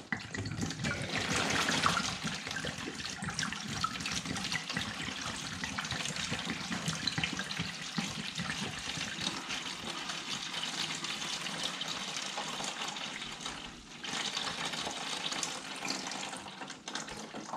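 Motorcycle coolant pouring in a steady stream from the disconnected lower hose outlet at the water pump and splashing into a plastic drain pan as the cooling system drains. It is loudest in the first couple of seconds and dips briefly near the end.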